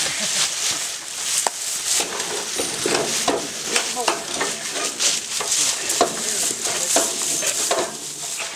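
Dry leaf litter crackling and rustling under several people's feet as they shift about, with many short scattered crunches.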